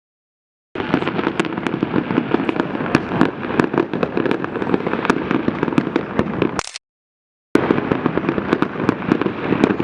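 Fireworks display: a dense, continuous barrage of bangs and crackles. The sound cuts out completely twice, at the start and about two-thirds of the way through.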